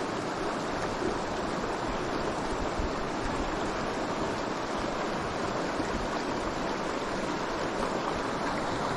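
Steady rush of the Fryingpan River, a mountain trout river, flowing.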